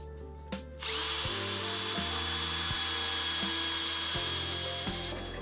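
Bosch 18 V cordless drill running steadily with a high-pitched whine as it bores a hole through the Jimny's body panel for fender-flare mounting. It starts about a second in and stops just before the end, over background music.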